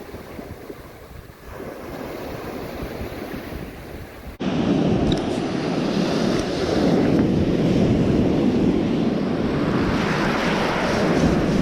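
Wind buffeting the microphone over surf breaking on the shore, with no clear engine tone; the noise jumps abruptly louder about four seconds in.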